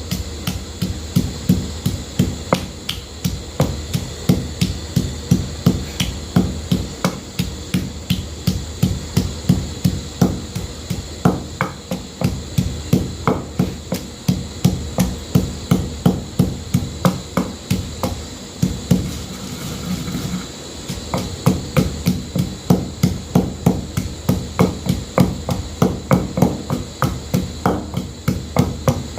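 Knife chopping on a cutting board, steady strokes at about three a second, with a short pause a little past the middle.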